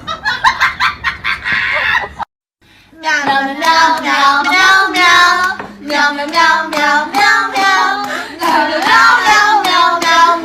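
A quick run of claps or taps for about two seconds, then a short silence, then a voice singing a melody over a steady accompanying tone.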